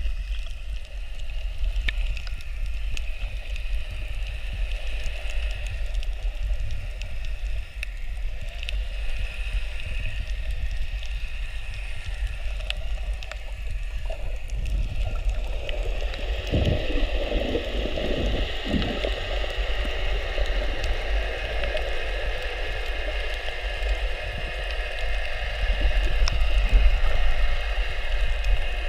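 Muffled underwater water noise: a steady low rumble with gurgling and bubbling, and a few louder sloshes about halfway through.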